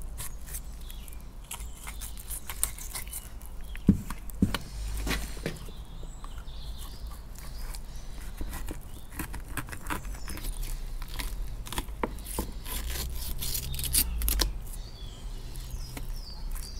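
Filleting knife cutting along a pollock on a plastic cutting board: a run of small irregular clicks and crackles as the blade works through the flesh and over the bones, with a few louder knocks about four seconds in, over a low steady rumble.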